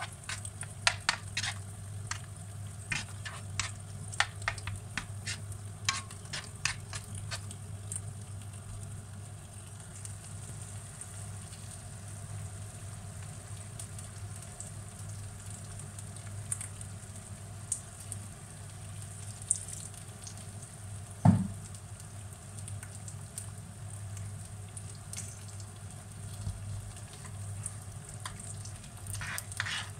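Mushrooms and onions sizzling in a non-stick frying pan as a metal spoon stirs them, the spoon clicking and scraping against the pan in quick strokes for the first several seconds and again near the end. A single dull knock comes about two-thirds of the way through, over a steady low hum.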